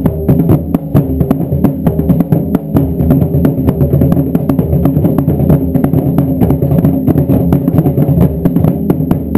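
Taiko drums played together in a steady, driving beat, with sharp stick strikes coming several times a second over deep drum tones.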